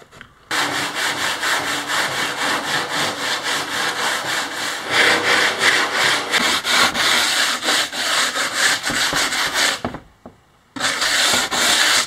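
Hand sanding of a fiberglass kayak hull edge: quick back-and-forth strokes of sandpaper rubbing on the fiberglass. It pauses briefly near the end, then starts again.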